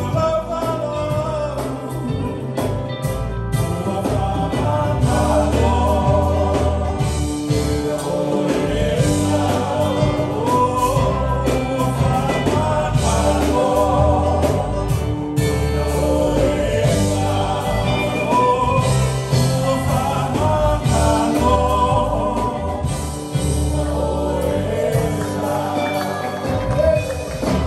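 Live gospel band playing a song: electric guitars, keyboard and drums, with voices singing over them.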